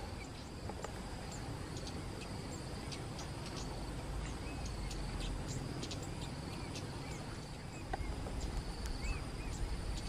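Flowerpecker giving many short, sharp, high 'tsip' call notes in quick, irregular succession, with a few small rising chirps, over a steady high insect buzz and a low rumble.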